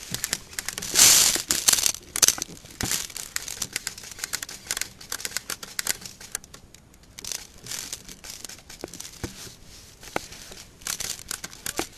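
Close rustling and scraping, like clothing and gear rubbing near the microphone, loudest about a second in, with scattered sharp clicks and knocks.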